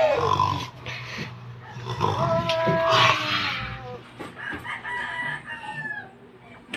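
A rooster crowing twice: a loud, held crow about two seconds in, then a fainter crow near the end. A person's voice sounds briefly at the start.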